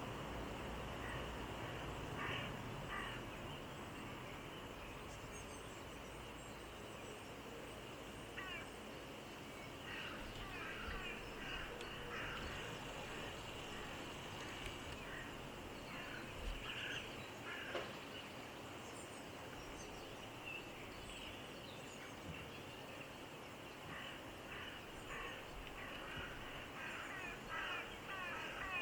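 Mallard ducks and ducklings calling while they feed: scattered short quacks and calls that come in clusters, busiest midway and near the end, over a steady outdoor background hiss.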